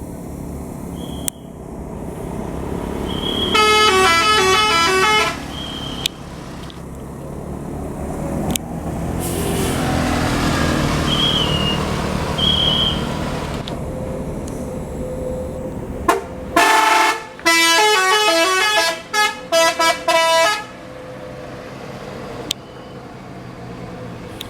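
Tour-bus telolet horns playing a stepping multi-note tune, once about four seconds in and again near the end in several short blasts. Between them a vehicle engine swells and fades.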